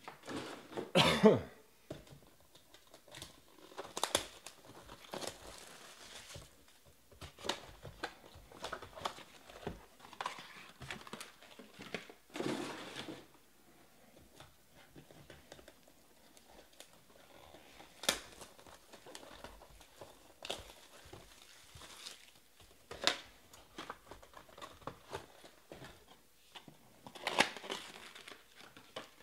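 Sealed cardboard trading-card boxes being handled and restacked on a table, with crinkling of packaging and light knocks in scattered short bursts. The loudest burst comes about a second in.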